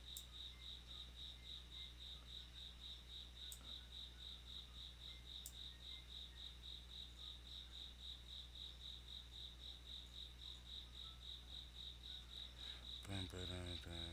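Faint, steady cricket chirping, a high pulsing chirp about four times a second, over a constant low hum. A low voice briefly sounds near the end.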